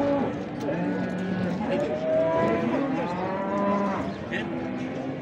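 Cattle mooing: several long calls at different pitches, overlapping one another.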